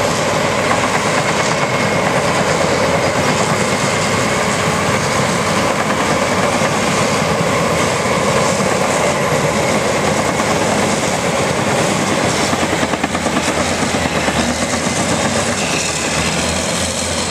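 Heavy diesel earthmoving machinery working under load: a Volvo T450D tractor pulling a K-Tec 1233 scraper as it loads clay, with a crawler dozer working behind it. A loud, steady, dense engine and machinery noise.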